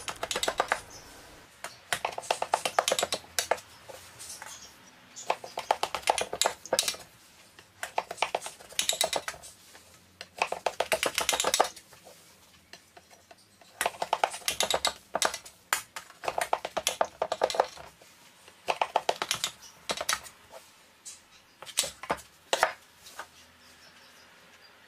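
A blade being drawn through layered baklava dough in a metal tray to cut slices. There are about eight strokes, each heard as a quick run of crisp, scratchy clicks lasting a second or two.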